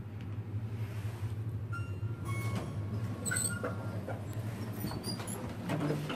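Otis elevator car running with a steady low hum, with a few brief high squeaks and chirps in the middle and a louder rumble near the end.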